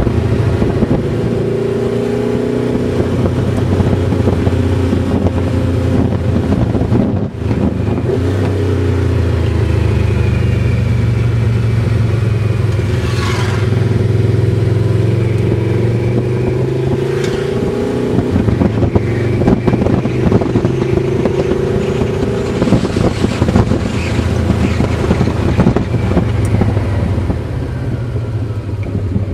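Yamaha VMax's 1200 cc V4 engine heard from the rider's seat, running with the revs rising and falling through a run of mountain bends, with a brief dip in level about seven seconds in. Wind rush over the microphone runs along with it.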